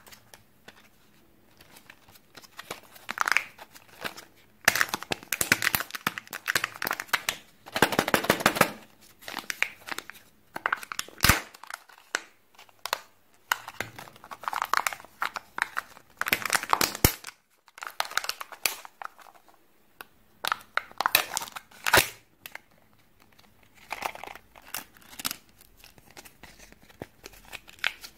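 Plastic foil wrappers of Kinder Joy eggs crinkling and tearing as they are handled and peeled open, in irregular bursts, with a few sharp clicks between them.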